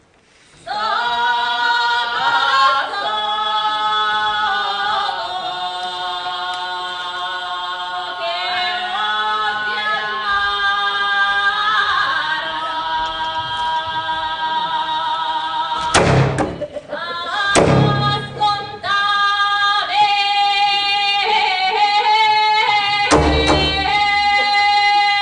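Voices singing long held, overlapping notes that slide between pitches, starting about half a second in. Heavy thumps cut across the singing several times in the second half.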